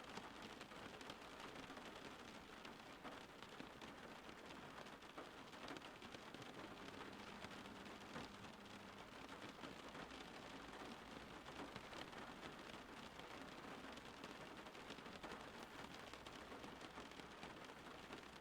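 Quiet, steady rain falling: an even hiss dotted with many small drop ticks.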